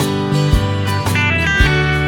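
Background music: guitar-led instrumental with a steady beat and a short high melodic run near the middle.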